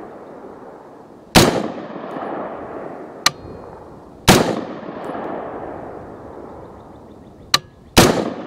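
Three rifle shots from a 16-inch AR-15 in 5.56 firing 55-grain M193 full metal jacket rounds, about three seconds apart, each with a long echoing tail. A short sharp click comes shortly before the second and third shots.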